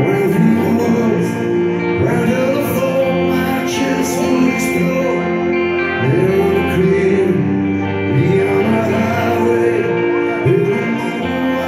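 Live rock band playing: a male lead vocal sung over electric guitars and a drum kit with cymbal strokes.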